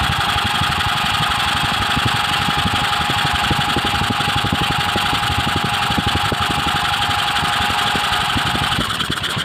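Electric drill spinning the crankshaft of a head-off GX150/200-type single-cylinder engine at high speed, with a steady whine over a rapid low clatter from the piston and crank. It eases off near the end. The piston is pumping oil up past the rings into the open bore, which has been damaged by corrosion.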